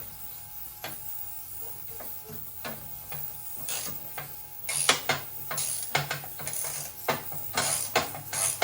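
Hand ratchet wrench clicking in short, irregular strokes as fasteners are worked loose, with a few metallic tool clinks. The strokes come thicker and louder in the second half.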